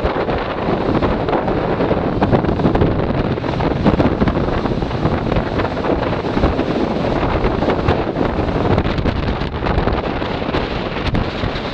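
Strong wind buffeting the microphone over the steady rush of storm surf breaking on the beach.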